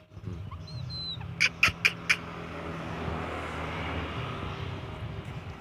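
A bird gives a faint thin whistle, then four short, sharp chirps in quick succession about a second and a half in, over a steady low hum.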